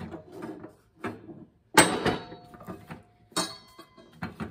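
A run of sharp metal clanks and scrapes as a stuck mower-deck spindle pulley is worked loose from its splined shaft. The loudest knocks come about two seconds in and again about three and a half seconds in, each with a brief metallic ring.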